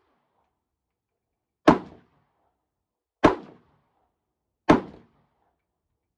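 Three rifle shots from an AK-pattern rifle, single shots about a second and a half apart, each a sharp crack with a short tail.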